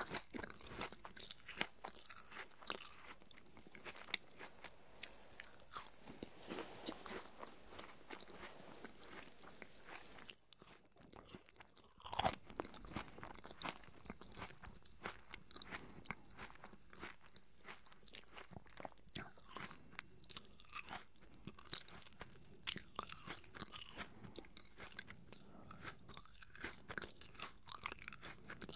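Close-miked chewing of juicy apple pieces: a steady run of crisp crunches and wet mouth clicks. There is a short lull about ten seconds in, then a louder crunch.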